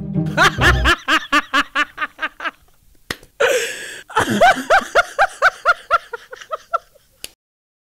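Laughter in quick, evenly spaced ha-ha pulses, in two runs with a short breathy rush between them, cutting off shortly before the end.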